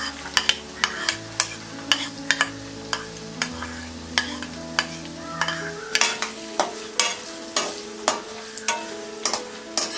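Chopped onions sizzling as they hit hot oil in a kadhai, with a metal spoon and spatula clacking against the bowl and the pan in sharp, irregular clicks as the onions are knocked in and stirred.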